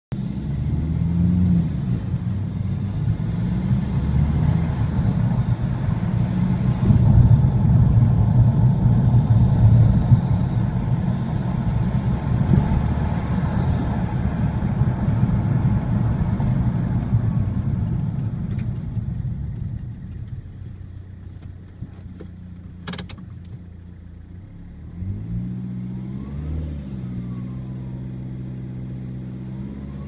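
Vauxhall Vectra CDTi turbodiesel, fitted with a Pipercross air filter and a modified air box, pulling hard as heard from inside the cabin, with a faint turbo whistle rising and falling over the engine noise. The engine goes quieter past the middle, a single sharp click comes about two-thirds through, and the engine rises in pitch again near the end as the car picks up speed.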